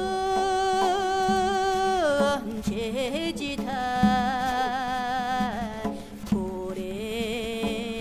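Music: a voice or instrument holding long, wavering notes over a steady low drone, in phrases of about two seconds with short slides between them.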